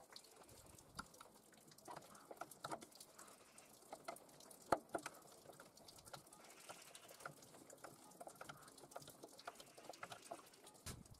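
Faint, scattered clicks and taps of a hand screwdriver driving wood screws through a steel angle bracket into a plywood base, with one sharper tap near the middle.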